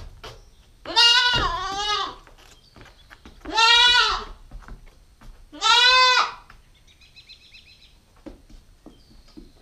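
A Nubian goat kid bleats loudly three times. The first call lasts about a second with a dip in pitch, and the next two are shorter, each about half a second.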